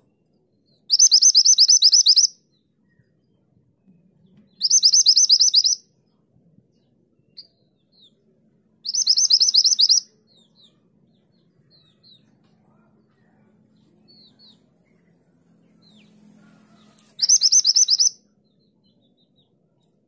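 Grey-chinned minivet (mantenan gunung) calling in four bursts of a fast, high-pitched run of repeated notes, each burst about a second and a half long. A few faint single chirps fall between the bursts.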